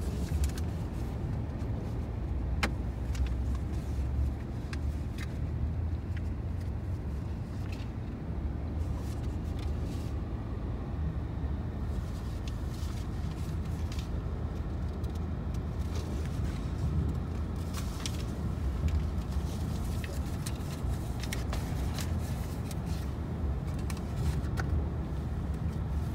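Steady rumble of a car's engine and tyres heard from inside the moving cabin, with a few faint clicks scattered through it.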